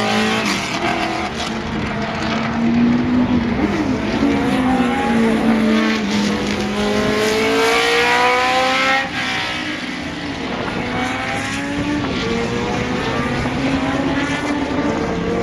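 Several racing cars driving past at speed, their engines overlapping. Each engine's pitch climbs and falls through gear changes, loudest about eight seconds in, then drops off abruptly a second later.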